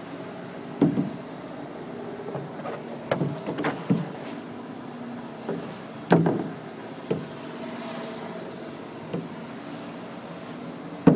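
A small boat being paddled against the current through floodwater: the paddle knocks against the hull and splashes about eight times at irregular intervals, over a steady low hum.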